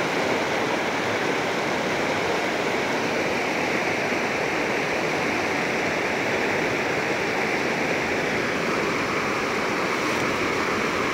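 Shallow, fast-flowing rocky river rushing steadily over stones in white-water riffles.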